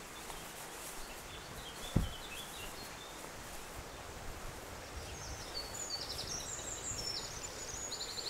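Outdoor rural background with a steady faint hiss and songbirds chirping, the birdsong growing busier and higher in the second half. A single dull low thump about two seconds in.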